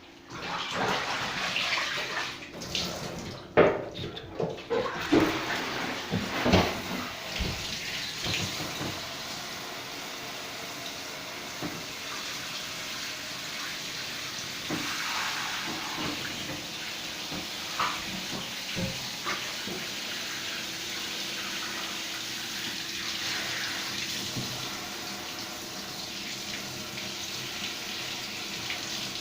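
Shower water spraying in a steady hiss while a cat is rinsed. Irregular splashes and knocks come over it for the first several seconds, then the spray runs on evenly.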